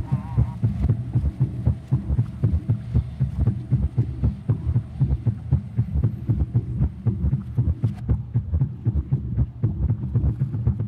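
A fast, low, throbbing pulse like a racing heartbeat, about four thumps a second, steady and unbroken.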